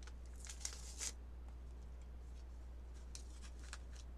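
Faint crinkling and small clicks of an MRE drink-powder packet being handled, in two short spells, about half a second in and again about three seconds in, over a steady low hum.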